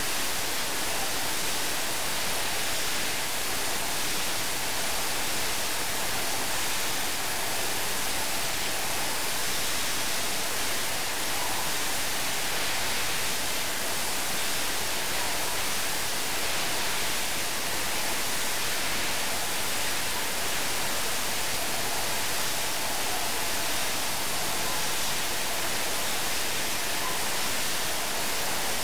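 Steady, even hiss like static, with no distinct clinks, knocks or rhythm standing out of it.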